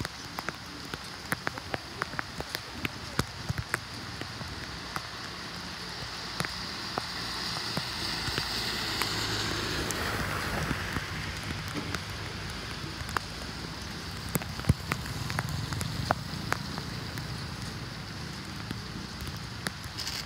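Water pattering and dripping, with many small sharp drips over a steady rush that swells in the middle.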